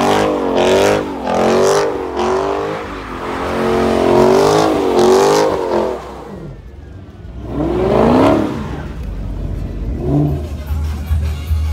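Car engine revving hard during a tyre-smoking burnout, its pitch swinging up and down about once a second as the wheels spin. After about six seconds it drops off, then gives one more rev that rises and falls.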